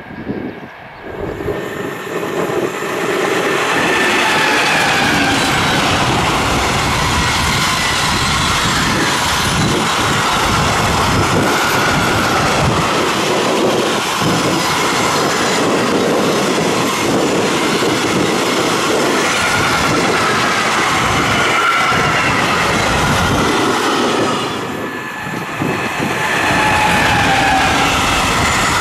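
A long freight train of container, tank and covered wagons rolling past close by, wheels clattering on the rails with wavering high-pitched wheel squeal. The noise swells up over the first couple of seconds, then holds steady, with a brief dip in level near the end.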